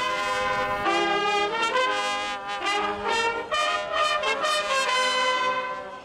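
Brass band of trumpets and trombones playing a tune, several horns together on short held notes that change every half second or so.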